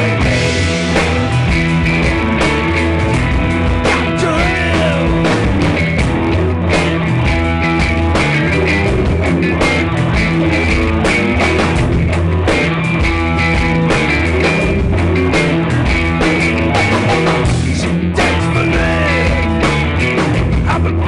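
Rock song played by a band: electric guitar, bass and drums at a loud, steady level, with a few bent, sliding guitar notes.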